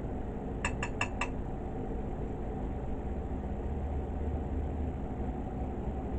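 A metal fork clinks four quick times against a dish about a second in as a meatball is speared, over a steady low hum.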